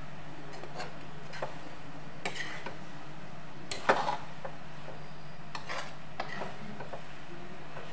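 A slotted steel spatula scraping and knocking against a metal kadhai (wok) as cooked noodles are tossed, in scattered clicks and scrapes with one louder clank about four seconds in, over a steady low hum.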